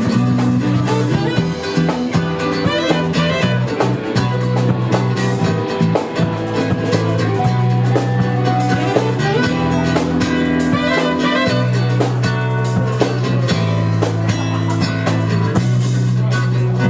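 Live band playing an instrumental piece: guitar over held bass notes that change every second or two, with drum kit and cymbals keeping time.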